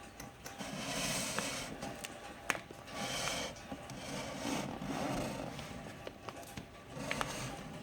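Cardboard firework boxes and packaging being handled and slid about: several rustling, scraping strokes about a second long, with a few light clicks and knocks between them.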